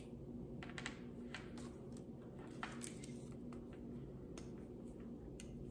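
Faint handling noises of a power cord and small plastic plug being unwound and fiddled with: scattered light clicks and rustles over a low steady room hum.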